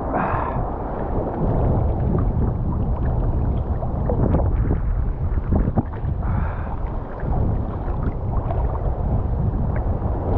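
Wind buffeting the microphone over choppy surf water sloshing close by, a steady rushing noise.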